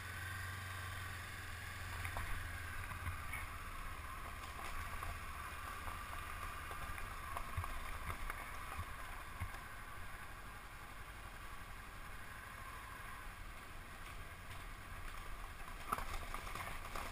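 Honda CB500X's parallel-twin engine running steadily as the motorcycle rides over loose, coarse gravel, with scattered clicks of stones under the tyres.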